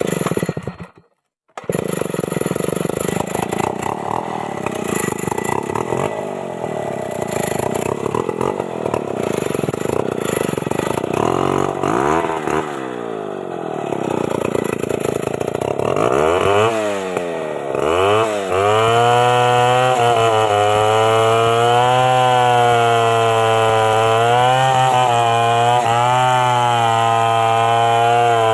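Stihl MS 381 two-stroke chainsaw running. After a brief dropout at the start it runs steadily, is revved up and down several times in the middle, then is held at a steady high throttle through the last third.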